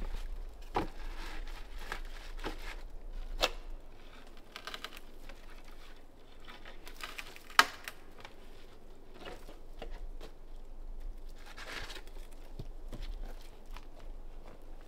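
Hands working at the edge of a log cabin's damaged roof: rustling, crinkling and scraping of roofing material and debris, with a few sharp knocks, the loudest about halfway through.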